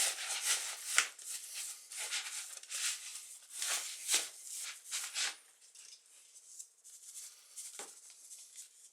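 Crumbly boilie mix of flours, semolina and bird seed being stirred and worked in a bowl: rattling, scraping strokes about twice a second that die down after about five seconds, leaving a few faint ones.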